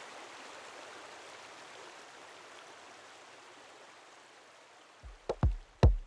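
A steady rushing hiss, fading slowly over about five seconds. About five seconds in, it gives way to a few loud, deep electronic drum hits, each dropping in pitch, the start of the channel's music.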